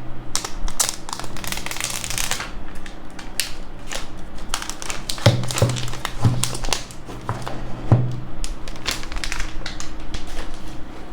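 iPhone SE box and its paper packaging being opened and handled: crinkling and rustling with many small clicks, and four dull knocks near the middle.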